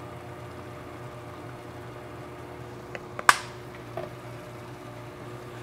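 Steady low kitchen hum over a wok of sauce on the stove. About three seconds in come two light clicks and then one sharp click, with a small knock a second later, as the glass sesame oil bottle is handled and put away.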